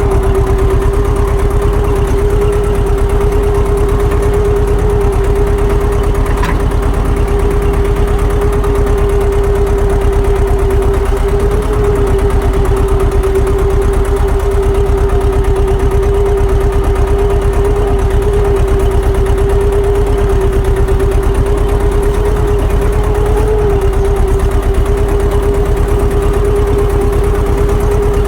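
Tractor's diesel engine running steadily at constant speed, with an even beat and a steady hum above it.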